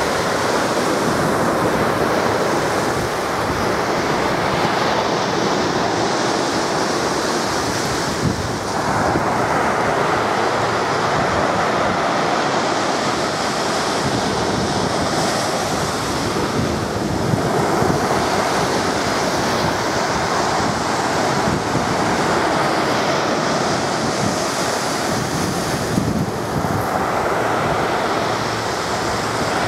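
Sea surf breaking and washing up the beach in a steady rush that swells and eases every several seconds, with wind buffeting the microphone.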